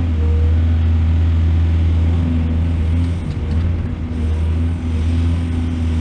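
Excavator engine running with a steady low drone, its level dipping briefly about halfway through before steadying again.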